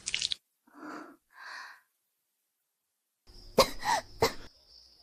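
A woman coughing, a sharp burst of three coughs a little past the middle after two faint sounds about a second in. A thin, steady high ringing tone starts with the coughs and runs on.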